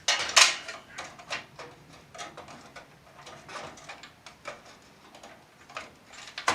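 Handling clicks and rustles of a processor being fitted into a motherboard's socket, with a louder, sharper noise about half a second in.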